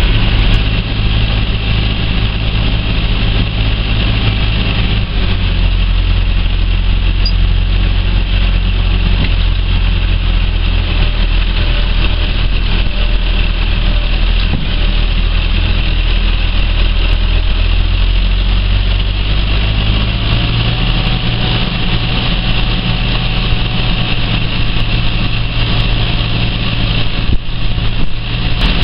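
Massey Ferguson 4245 tractor's four-cylinder diesel engine running steadily while pulling a tine-harrow smoother, heard from inside the cab. The engine note shifts slightly about five seconds in and again around twenty seconds.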